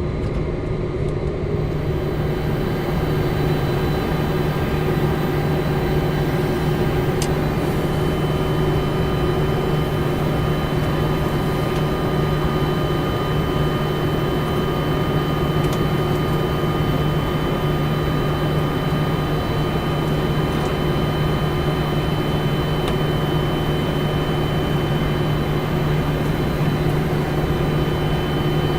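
Steady hum and rush of a Boeing 747-400 flight deck with the engines running at idle, carrying several constant whining tones. A higher steady whine joins about eight seconds in.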